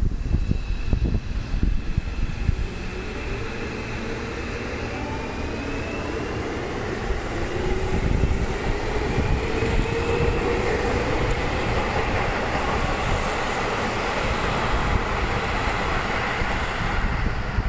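Seibu 6000-series electric commuter train accelerating away from a station stop: its motor and inverter whine climbs slowly in pitch over the rumble of wheels on the rails. Wind buffets the microphone near the start and end.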